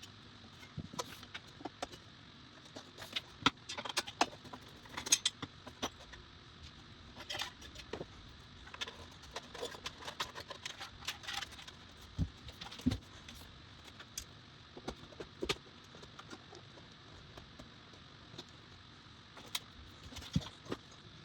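Irregular clicks, taps and light rattles of hands handling PC case parts and cables, with a couple of dull knocks about twelve seconds in.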